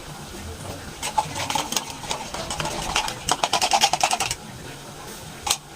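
A spoon stirring and scraping in a cooking pot: a quick run of scrapes from about a second in to past four seconds, then a couple of single knocks near the end.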